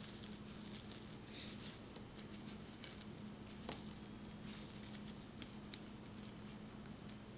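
Faint rustling and crinkling of satin ribbon being handled at close range while thread is tied around a stacked hair bow, with a few small clicks, over a steady low hum.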